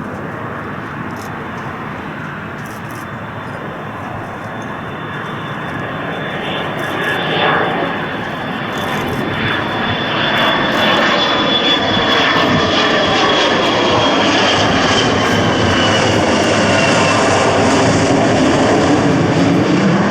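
Boeing 727-200F freighter's three JT8D turbofan engines on approach to land, growing steadily louder, with a high whine that holds steady and then falls in pitch as the jet passes.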